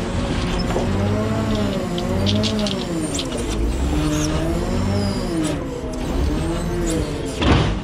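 Knuckle-boom grapple crane truck's engine and hydraulics running under load, with a steady pitch that rises and falls in slow waves as the crane is worked. A sharp clunk comes near the end.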